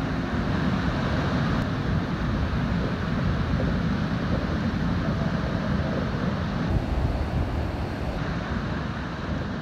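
Ocean surf breaking and washing up a sandy beach, a steady rushing with wind rumbling on the microphone, growing fainter near the end.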